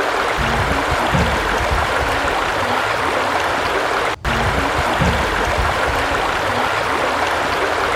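Steady rush of running water, cut off for a split second about four seconds in before carrying on unchanged.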